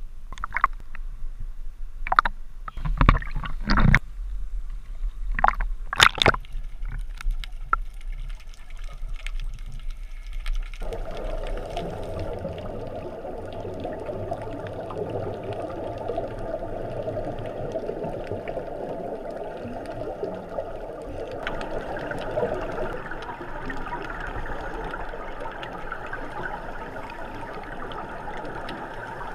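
Seawater splashing and slapping against a waterproof action-camera housing at the surface, a scatter of sharp splashes over a low rumble. About a third of the way in it changes abruptly to a steady, muffled underwater rushing, which turns brighter about two thirds of the way in.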